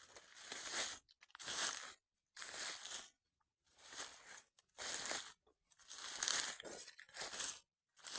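Footsteps pushing through dry forest undergrowth, about one step a second, each step a short rustling crunch.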